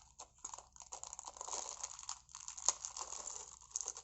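Thin plastic packet of Lego bricks crinkling and crackling as it is handled and torn open, with irregular small crackles.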